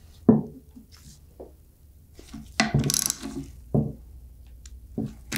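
Handling noises from a cast-iron pump bearing frame and a hand tool on a wooden workbench. A few scattered knocks and clunks, with a short scraping rattle about halfway through.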